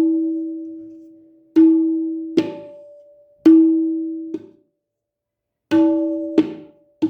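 Tabla struck with single resonant strokes about a second apart, each ringing out at one steady pitch near E, as the repaired drum's tuning to E is checked. There is a short silent pause in the middle, and a quick run of strokes comes right at the end.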